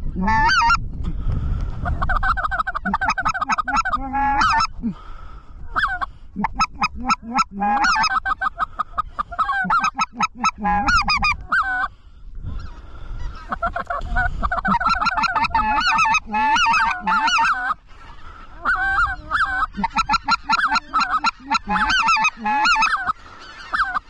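Specklebelly (greater white-fronted goose) calling: runs of quick, high yelping notes, many to the second, broken by short pauses a few times. Wind rumble sits under it, heaviest in the first couple of seconds.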